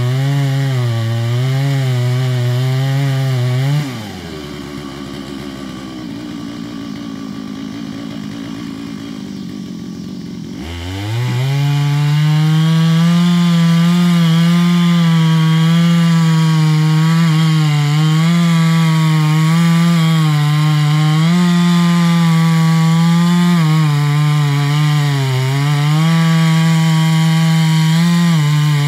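Stihl MS 660 two-stroke chainsaw with a 42-inch bar cutting into a large oak trunk, its engine note wavering under load. About four seconds in the throttle is let off and the saw idles. Near eleven seconds it revs back up and runs at full throttle in the cut, the pitch dipping now and then as the chain bogs in the wood.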